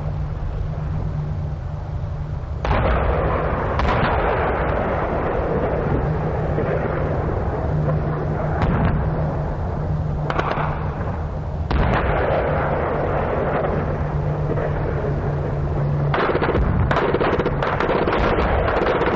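1944 battlefield field recording of artillery and machine-gun fire: rolling gunfire and explosions that swell up suddenly a few times, with a close run of rapid shots in the last few seconds, over a steady low hum.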